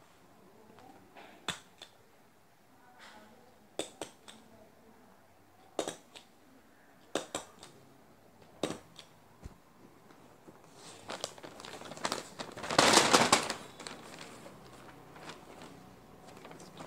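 Newspaper being handled and folded into a bag: a string of sharp clicks every second or two in the first half, then a louder stretch of paper rustling and crinkling past the middle.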